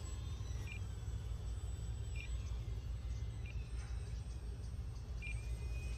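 Steady low wind rumble on the microphone, with four faint, short high chirps spread through it.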